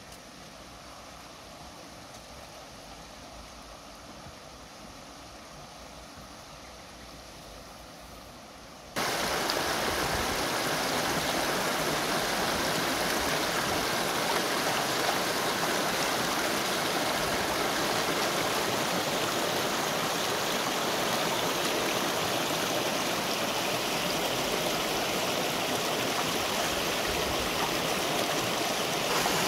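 A shallow river rushing over stones in a small rapid, a steady sound of running water. It is faint for about the first nine seconds, then suddenly much louder and close.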